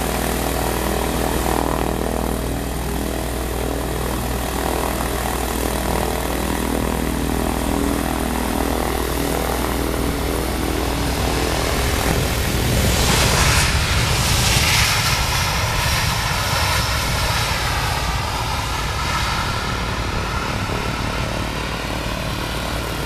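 Airbus A319 airliner's jet engines during landing: steady engine noise on final approach and touchdown, swelling to a louder rush about halfway through as the airliner rolls past on the runway, then a wavering whine as it moves away down the runway.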